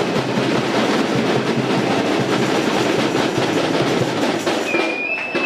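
Crowd applauding and cheering, a dense steady crackle of clapping that eases off near the end, where a brief high steady tone sounds.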